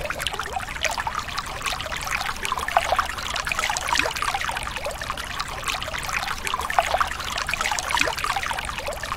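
Water trickling and babbling steadily, with a low rumble underneath.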